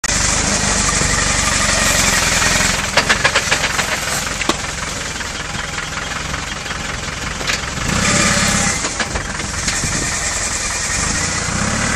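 Land Rover Defender Tdi turbodiesel engine running under load as the ute crawls over rocks. There is a quick run of sharp knocks about three seconds in, and the revs rise again about eight seconds in.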